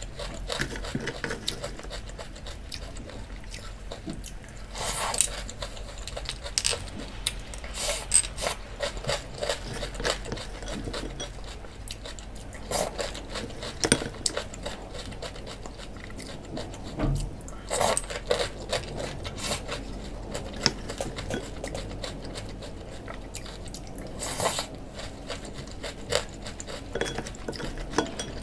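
Cereal being eaten from a bowl with a spoon: repeated clinks and scrapes of the spoon against the bowl, with crunching and chewing between them.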